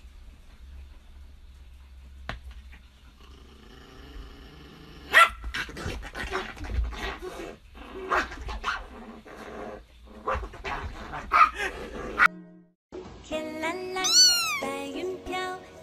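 Small brown poodle barking in short bursts from about five seconds in until a sudden cut. It is followed by a grey kitten meowing, with one loud mew near the end that rises and falls.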